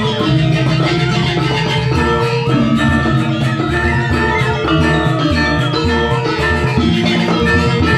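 Balinese gong kebyar gamelan playing a Buleleng-style kebyar piece: many bronze metallophones ringing together in dense, fast-moving patterns over the strokes of kendang barrel drums and low gong tones.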